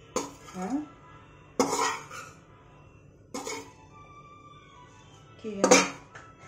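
A steel ladle scraping and knocking against a steel kadhai while stirring desiccated coconut being dry-roasted in ghee. There are four strokes, about one every one and a half to two seconds, with the pan ringing faintly between them.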